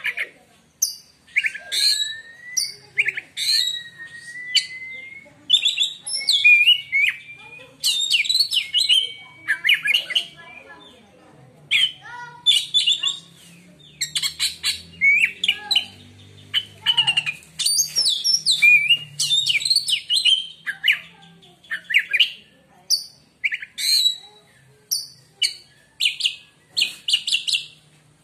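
Oriental magpie-robin (kacer) singing a rapid, varied song of short chirps, trills and whistles, phrase after phrase with brief pauses between them.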